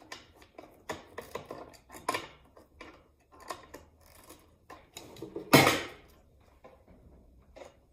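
Steel pliers clinking and scraping on a small electric water heater tank while twisting its screw-in heating element loose, with a series of sharp metal knocks and one loud clank about five and a half seconds in.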